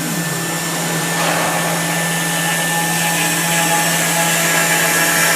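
A 5-axis CNC router running, its spindle giving a steady hum. From about a second in, a hiss of cutting rises over it and the whole sound grows slightly louder as the tool starts to cut.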